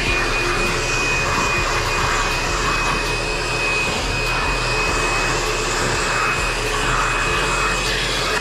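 Cordless drill running steadily with a high whine, driving a self-tapping screw through the mounting holes of a boat-mounted AC power plug. It stops abruptly at the end.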